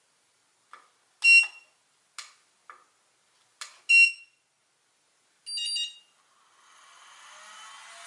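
Button beeper of a hobby balance charger: soft key clicks and two loud single beeps as the menu is stepped through, then a quick run of short beeps as a battery discharge cycle is started. A faint hiss slowly rises near the end.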